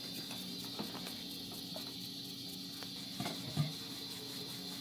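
Light knocks and handling of a wooden rolling pin on a stone rolling board as rolling of the dough begins, with two clearer knocks a little past three seconds in, over a steady background hum.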